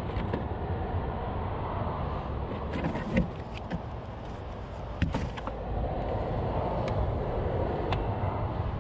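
A few sharp clicks and knocks from hands handling an RC truck and its gear in a car's cargo area, the loudest about three seconds in and another about five seconds in, over a steady low rumble.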